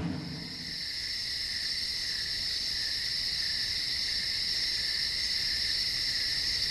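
Night insect chorus, crickets trilling in a steady, unbroken high-pitched drone.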